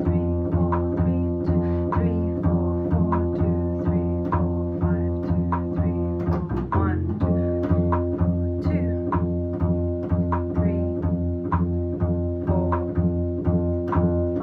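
Upright bass played pizzicato, plucking a line in 4/4 against a metronome that clicks once every five eighth notes, a time-feel exercise. The notes change about halfway through.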